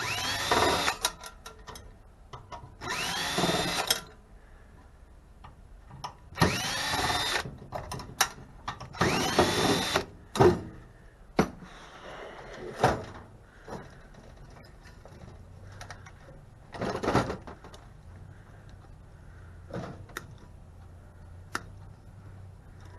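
Power drill run in reverse in four short bursts, each spinning up with a rising whine, backing out the screws that hold a microwave's magnetron. It is followed by scattered clicks and knocks.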